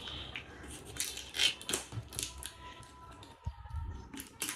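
Plastic shrink wrap on the lid of a protein powder tub crinkling in short, irregular crackles as it is picked at and peeled off by hand.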